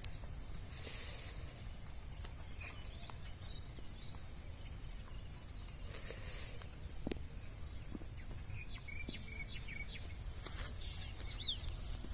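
Insects chirring steadily and high-pitched over a low rumble, with a few faint clicks and a short falling bird chirp near the end.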